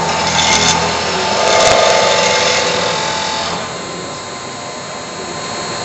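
Special-purpose unit-head machine tool on a production line running its machining cycle: the power heads drill into a metal part with a loud, busy cutting noise for about three and a half seconds, then the machine runs on more steadily with a thin high whine.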